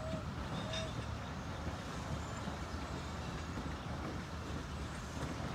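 East Broad Top narrow-gauge train rolling slowly on the rails, a steady low rumble. There are two short squeaks within the first second.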